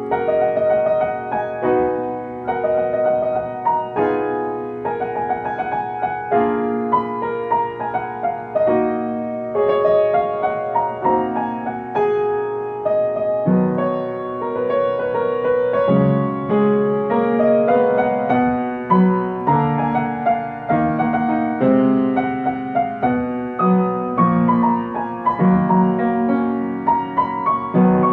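Solo piano playing a pop-ballad melody over chords, with a fuller left-hand bass line coming in about halfway through.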